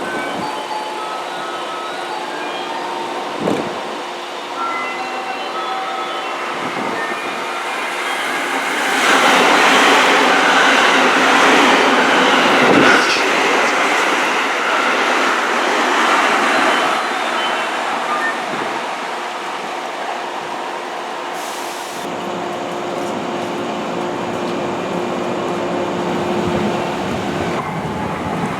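Electric train running at a station platform: its wheel and running noise swells loudly about nine seconds in and eases off over the following seconds, followed later by a steady hum.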